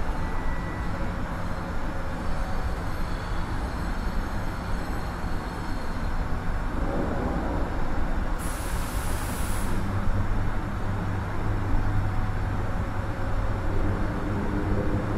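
Steady industrial rumble and drone of a steel mill's converter hall, heard high up under the roof in the secondary metallurgy area. About eight seconds in, a high hiss cuts in for over a second, and from about ten seconds a deeper hum comes up louder.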